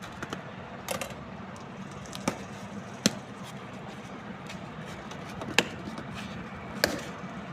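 About five sharp clicks and knocks, unevenly spaced, over a steady low hum. The loudest come about three seconds in and just past the middle.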